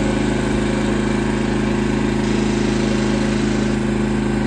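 Portable gasoline generator running steadily at an even engine speed while it is being topped up with fuel.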